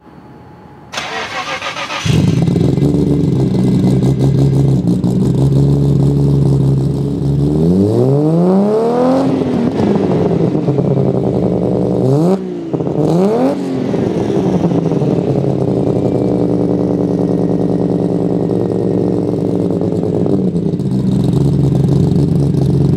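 Nissan Skyline GT-R R33's twin-turbo RB26DETT straight-six starting up: the starter cranks about a second in, the engine catches about a second later and settles into a steady idle. It is revved once about eight seconds in, rising and falling back, then blipped twice more a few seconds later before returning to idle.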